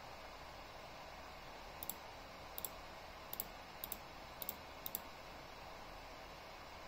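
Six quick double clicks, each a press and a release of a computer mouse button, coming about every half-second to second over a steady low room hiss.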